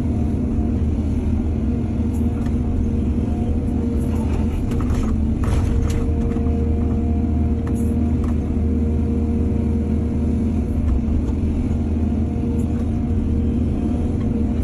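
Excavator's diesel engine running steadily with a constant low drone, with a few short knocks and clatters in the middle.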